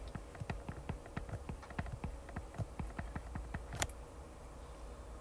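Stylus tip tapping and scratching on a tablet's glass screen while handwriting: quick light clicks, several a second, with one sharper click near four seconds in and fewer after.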